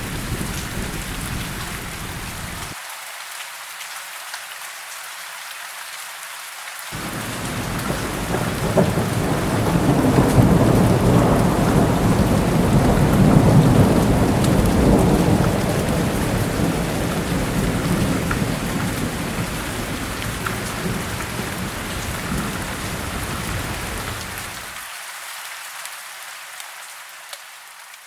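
Thunderstorm: rain falling steadily, with a long rumble of thunder that swells a few seconds in and slowly dies away. The sound fades out near the end.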